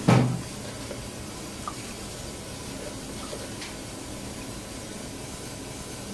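Freshly washed, wet water spinach tipped from a plastic colander into a stainless steel bowl, landing with one short loud clatter at the start. A steady background hiss follows, with a few faint taps.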